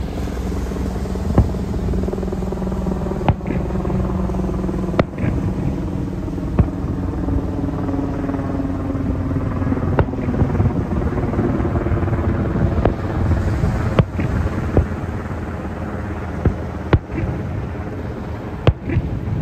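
Aerial firework shells bursting: about ten sharp bangs at irregular gaps of one to three seconds, over a steady low engine-like drone whose pitch sinks slowly partway through.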